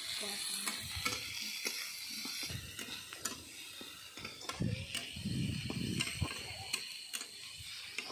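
Chopped onions frying in hot oil in an iron karahi, sizzling, while a metal spatula scrapes and clicks against the pan as they are stirred. The sizzle is strongest at the start and thins out; a low rumble comes in about halfway.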